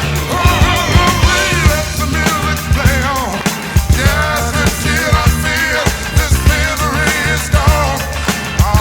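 Rock song with a sung vocal and a steady drum beat, played loudly.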